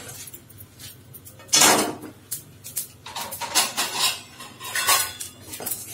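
White sesame seeds dry-roasting in a hot kadai, crackling and popping in scattered sharp clicks. This popping is the sign that the seeds are roasting properly so they won't taste bitter. A louder metal clatter of the pan and tongs comes about a second and a half in.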